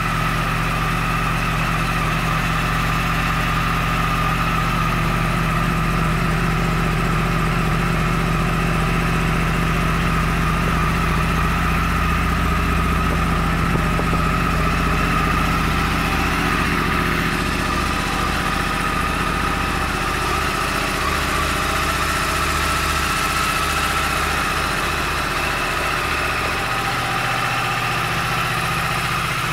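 2014 Yamaha YZF-R1's crossplane inline-four engine idling steadily, its deeper tone shifting a little about seventeen seconds in.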